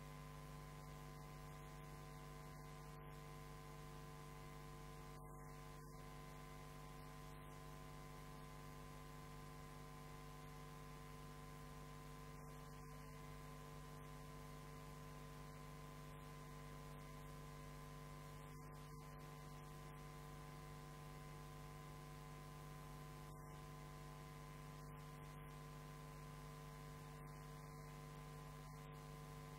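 Near silence: a steady electrical hum with faint hiss, unchanging throughout.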